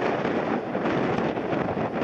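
Strong gusty wind buffeting the microphone, with the steady engine noise of a jet airliner on approach in heavy crosswind.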